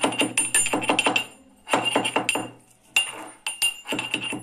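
Steel pestle pounding black peppercorns in a mortar: rapid, repeated strikes, several a second, with a metallic ring, broken by two short pauses about a second and a half and two and a half seconds in.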